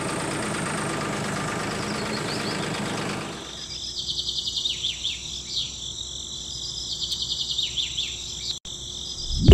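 A mini DIY toy tractor runs with a steady engine-like noise, which stops about three seconds in. After that, insects trill and birds chirp.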